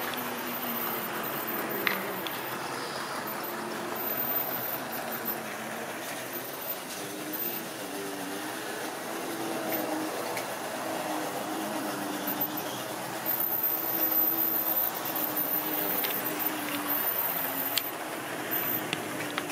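Tri-ang model train running on the track: a steady electric motor hum that wavers in pitch, with the rattle of wheels on the rails and a few sharp clicks.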